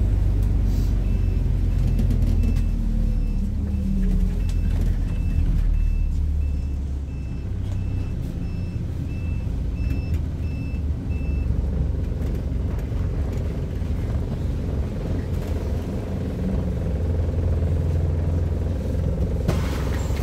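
MAZ-226 bus engine running with a low rumble, while an electronic beeper on the bus gives short, even, high-pitched beeps about one and a half times a second. The beeps go on for some ten seconds, then stop.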